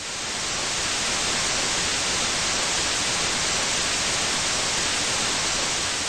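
Steady hiss of white noise like TV static, fading in over the first second, used as a sound effect under a logo bumper.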